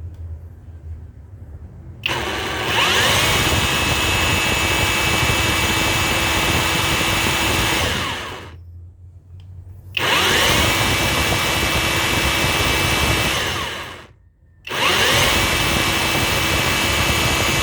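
Cordless rotary hammer running unloaded in three runs, each spinning up with a rising whine and then holding a steady high motor whine, as its speed is measured.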